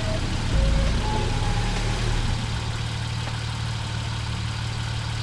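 A steady low engine hum, like a vehicle idling, with a brief extra-low rumble in the first couple of seconds.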